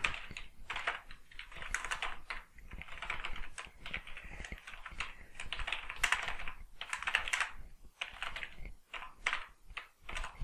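Typing on a computer keyboard: quick runs of key clicks broken by short pauses, with a few longer gaps near the end.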